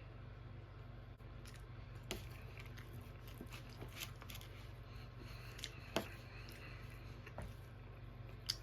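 A person quietly chewing a mouthful of MRE chicken burrito bowl (chicken, beans, corn and rice in a light chili), with a few light clicks and taps spaced about two seconds apart, over a steady low hum.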